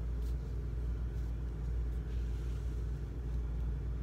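Steady low background rumble with a hum in it, carrying on unchanged, with a few faint light taps as a pottery rabbit figurine is handled on a hard tabletop.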